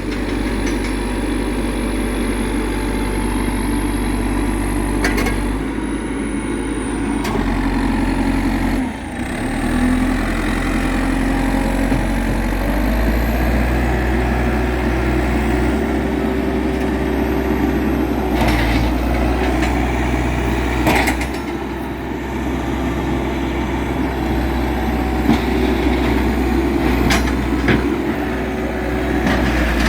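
Diesel engine of a 1998 JCB backhoe running steadily, its note dipping briefly about nine seconds in and picking up again around thirteen seconds. A few sharp knocks or clanks sound over it now and then.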